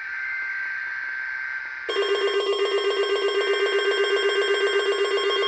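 Weather radio receiver alarm for a Required Weekly Test. A steady high tone with light static comes first, then about two seconds in a loud, rapidly pulsing electronic warning alarm starts and keeps sounding.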